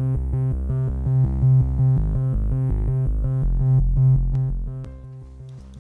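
Electronic intro music: a synthesizer playing a fast, evenly repeating pattern over a steady beat, dropping lower in level about five seconds in.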